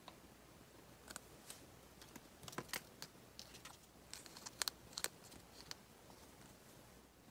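Quiet small clicks and light crinkles of fingers handling the plastic-wrapped shell of a large Chupa Chups Surprise ball lollipop, scattered and irregular, busiest from about two to five seconds in.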